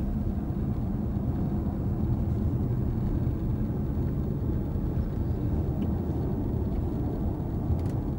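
Car driving at a steady pace, heard from inside the cabin: a steady low drone of engine and road noise, with no revving.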